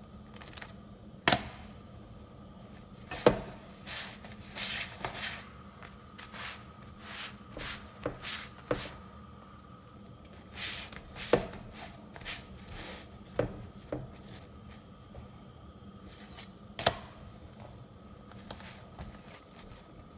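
Rumali roti being pressed with a dry cloth and turned on a hot upturned frying pan: soft swishes of cloth and bread rubbing on the metal, with several sharp knocks against the pan, over a steady low hum.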